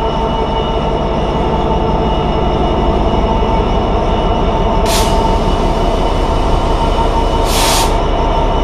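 Class 66 diesel locomotive's two-stroke V12 engine working as it pulls away and passes close by, a steady drone with a constant whine over it. Two short bursts of hiss cut through, about halfway through and again near the end.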